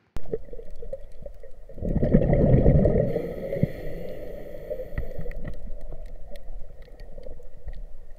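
Underwater sound of a scuba diver's own breathing through the regulator: a loud gurgling burst of exhaled bubbles about two seconds in, then a hiss for a couple of seconds, with faint scattered clicks.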